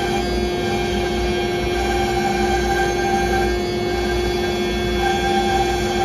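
CNC router spindle running and cutting into a wooden board, a steady hum with several held tones over a noisy rush.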